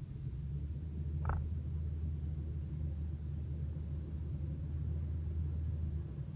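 Steady low engine and road rumble of a car driving, heard from inside the cabin, easing off near the end. A brief high chirp sounds about a second in.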